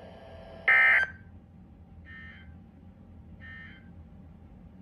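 NOAA Weather Radio Emergency Alert System end-of-message data bursts: three short, harsh, buzzy digital bursts about 1.3 s apart, marking the end of the severe thunderstorm warning. The first burst is loud and the next two are fainter.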